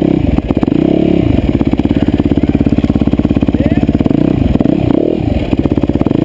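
Off-road dirt bike engine running at low revs close to the microphone, blipped up and back down twice, about a second in and again around four and a half seconds in.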